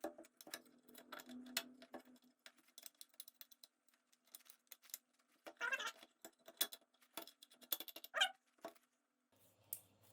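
Faint, scattered clicks and clinks of small metal scooter parts being handled and fitted by hand, with a short scraping rustle about six seconds in.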